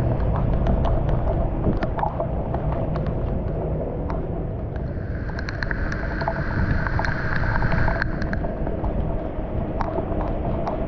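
Floodwater rushing steadily into a street storm drain, with scattered splashes and clicks from hands working in the water to clear debris from the drain.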